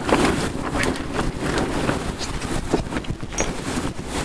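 Wind buffeting the microphone and water rushing along the hull of a sailboat heeled under sail in choppy water, with scattered rustles and knocks of clothing and gear rubbing the body-worn camera as the crewman moves.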